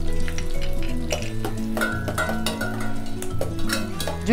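Chopped ginger and garlic sizzling in hot melted butter in a stainless steel saucepan, with a spoon stirring and clicking against the pan. Soft background music plays underneath.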